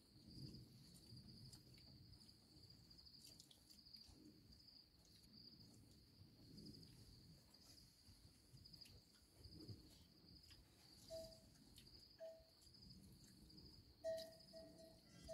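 Crickets chirping steadily and faintly in the night air. A few brief, level tone-like notes come in over them in the last few seconds.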